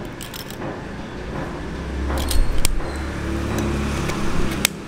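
A motor vehicle's engine runs close by with a low rumble that swells about two seconds in. Over it come a few sharp clicks and taps from the plastic self-cleaning slicker brush being handled and tapped to shed the combed-out dog hair.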